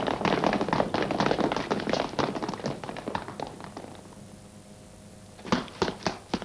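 Running footsteps of a group of people on pavement, a dense clatter of taps that thins out and fades away over about three seconds. Near the end, a few single sharp footsteps as one person starts to run.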